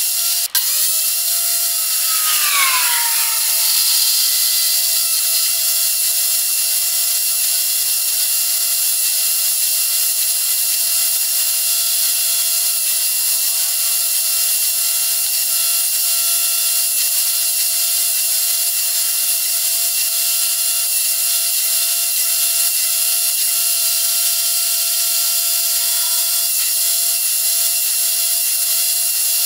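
Benchtop table saw running with a steady high motor whine while plywood is fed through the blade. The pitch dips briefly about two seconds in.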